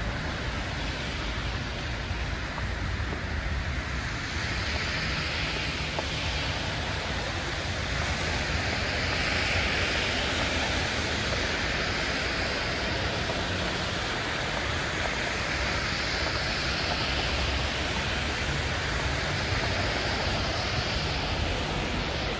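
Steady street traffic noise on a wet, snowy road: a low rumble with tyre hiss that swells twice, around the middle and again near the end, as vehicles pass.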